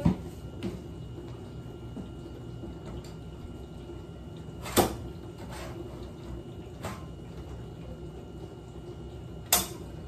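Metal tubes of a clothing rack knocking and clacking as the poles are fitted together: a handful of sharp knocks, the loudest about five seconds in, over a low steady hum.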